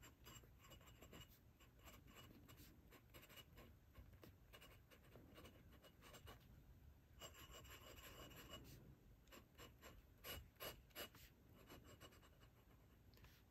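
Faint scratching of a glass dip pen writing and drawing on paper, with a few sharper ticks of the nib about ten seconds in.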